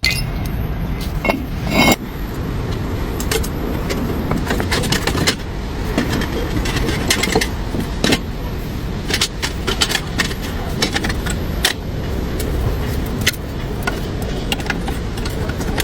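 Metal parts and tools clinking and tapping, many short separate clicks over a steady background noise: hands-on work on a car's wheel hub assembly.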